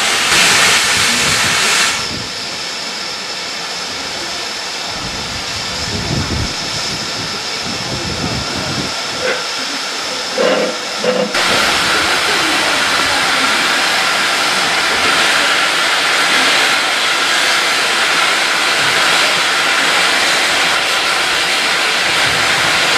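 Steam hissing steadily from a standing GWR 2251 Class 0-6-0 steam locomotive. It is loud at first, drops back after about two seconds, and swells again about halfway through, with a few faint knocks just before.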